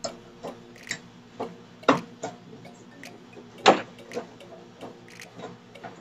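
Irregular clicks and taps of wire connectors and metal parts being handled inside an opened microwave oven, with louder knocks about two and nearly four seconds in, over a faint steady hum.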